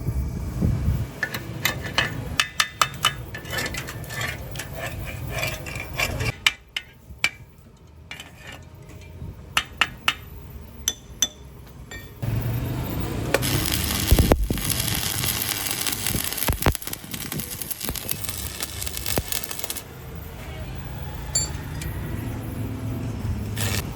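Metal clinking, tapping and knocking from tools and parts being handled at a workbench, in several short segments that change abruptly, with a steadier rushing noise through the middle.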